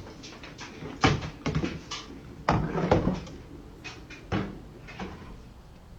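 A handful of separate knocks or bangs, like a cupboard or door being knocked or shut, irregularly spaced over low background noise; the loudest comes about two and a half seconds in.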